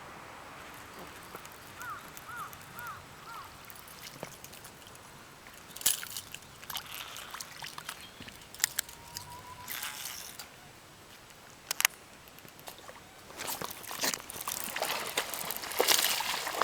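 Water splashing and sloshing in scattered bursts, growing busier over the last few seconds. There are four short rising-and-falling chirps about two seconds in.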